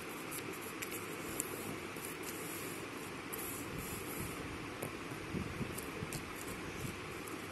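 Steady background hiss, with scattered faint taps and rustles of paper being pressed down by hand.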